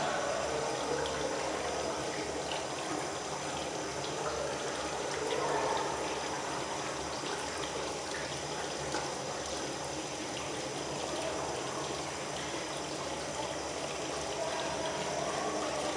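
Tap water running steadily, as during handwashing.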